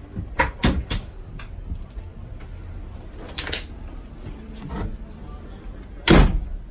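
Wooden cabinet door swinging shut over an electrical panel, latching with a few sharp clicks within the first second. A couple more knocks follow midway, and there is a louder thump near the end.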